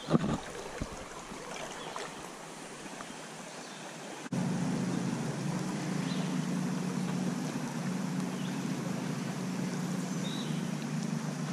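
Creek water running steadily around a wader. About four seconds in, it turns abruptly to a louder, deeper steady rush.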